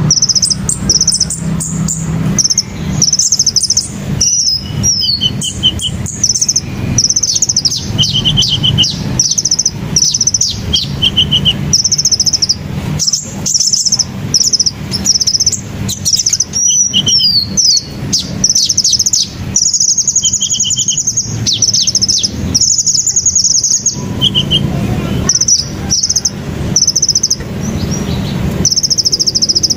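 Sunbirds (Indonesian 'kolibri') calling: a steady run of short, very high, rapid trills, each under a second long, with a lower short trill about six times. A low steady rumble runs underneath.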